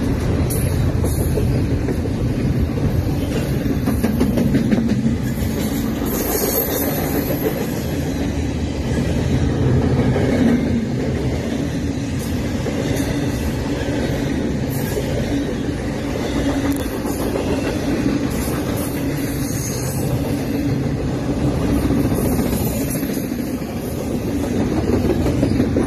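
Double-stack intermodal freight train's well cars rolling past: a steady rumble and clatter of steel wheels on the rails, with a brief high squeal about six seconds in.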